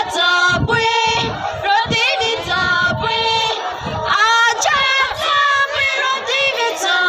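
A group of women singing a folk dance song together, with held notes that slide in pitch.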